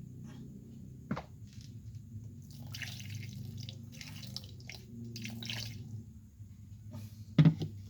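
Electric meat chopper running, its motor humming steadily while the blade churns food without added water, with irregular spattering and ticking from the contents. A sharp knock sounds near the end.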